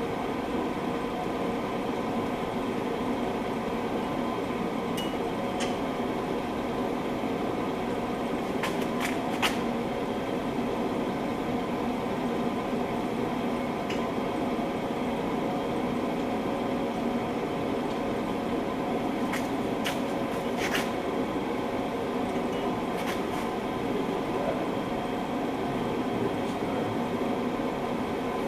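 Steady mechanical fan-like hum with faint steady tones throughout. Over it come about eight short, sharp metallic clicks and taps from hand tools, a socket on an extension being worked onto the hub bolts.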